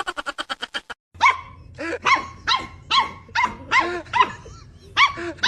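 A rapid train of clicks for about a second, then a dog barking repeatedly in short, high-pitched yaps, about two a second.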